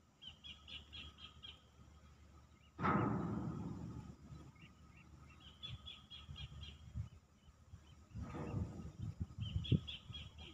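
A bird calls three times, each a short run of quick chirping notes. A sudden loud rush of noise about three seconds in fades away over a second or so, and a second noisy stretch with a few knocks follows near the end.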